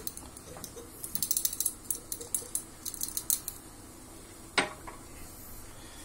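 Quick run of small plastic clicks and rattles from handling a small dropper bottle and its dropper cap beside a plastic cup, with one louder short knock about four and a half seconds in.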